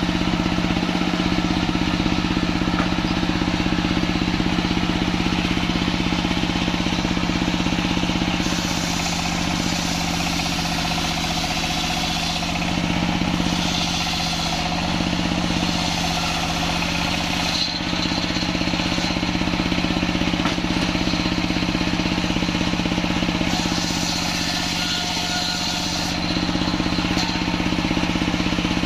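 A stationary diesel engine running steadily, driving a large circular sawmill blade that rips lengthwise through a kantil-wood log. The blade's cutting hiss swells and fades several times as the log is pushed through the saw.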